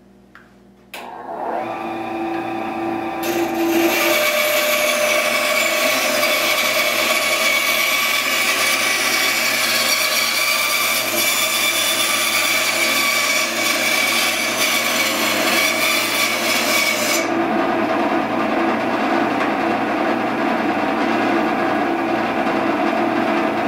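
Rikon 10-inch benchtop bandsaw (model 10305, 1/3 hp motor) switched on about a second in, its motor and blade settling into a steady hum. From about three seconds in until around seventeen seconds the blade saws through a plywood board, a dense hiss over the hum. After that the saw runs free with no load.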